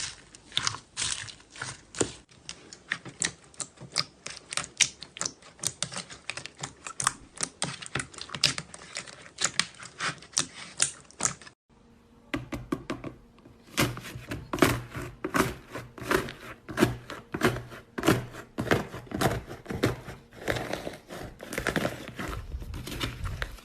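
Slime being pressed and squeezed close to the microphone, making a rapid, dense run of crackling clicks and pops. About halfway through there is a brief break, then a second recording of the same kind of crackling with a low hum under it.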